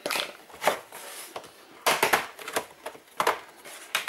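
Plastic bottom cover of a laptop being worked loose and lifted off by hand: a series of sharp clicks and knocks, irregular and loudest about two seconds in.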